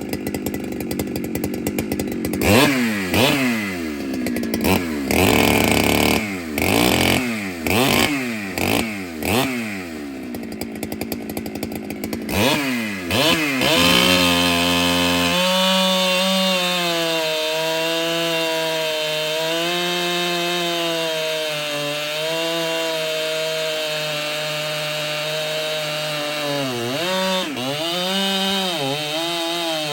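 Ported Husqvarna 395 two-stroke chainsaw blipped up to speed about eight times, each rev falling back, then held at full throttle from about halfway in. The held note wavers slightly and dips briefly twice near the end, as the saw cuts under load in a chainsaw mill.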